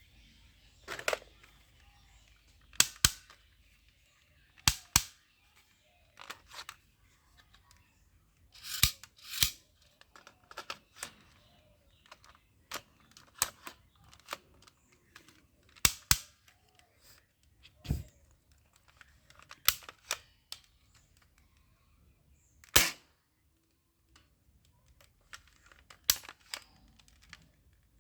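Airsoft pistol firing single shots every second or two, sharp cracks with a few fired in quick pairs, and lighter clicks between them.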